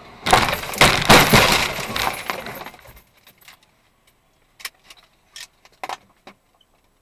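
A bus crash: a sudden loud crash of impacts, scraping and shattering glass lasting about three seconds as the bus is hit and runs off the road, followed by scattered clinks and ticks of glass and debris settling.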